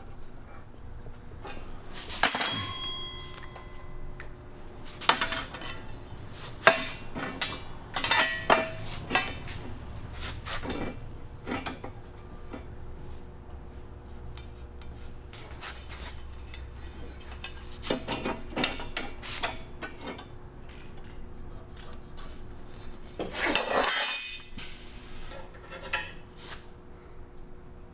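Steel parts and tools being handled: scattered clanks and clinks, with one piece struck about two seconds in that rings on for over a second. A longer scraping clatter comes near the end.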